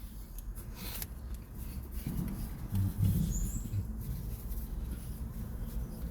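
Close-up chewing and mouth sounds of someone eating a burger, with small clicks and smacks over a steady low rumble.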